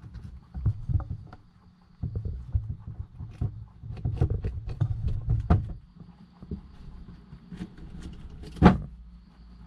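White rabbits shuffling and scuffling in a glass-walled enclosure. Irregular knocks and scrapes run over a low rumble, with one louder thump near the end.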